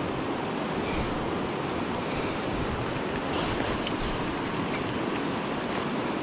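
Steady rushing of a river running over a rocky riffle.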